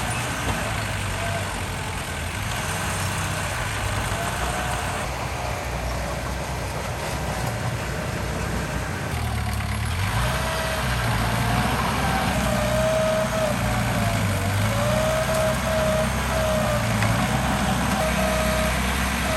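Diesel engine of heavy earthmoving machinery running steadily, its pitch wavering as it works, a little louder from about ten seconds in.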